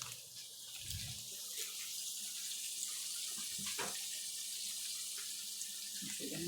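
Steady hiss of water in a cooking boil on the stove, with a couple of short, faint knocks.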